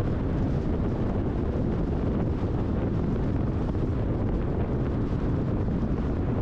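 Steady wind and road noise of a car driving at highway speed: an unbroken low rumble with no changes.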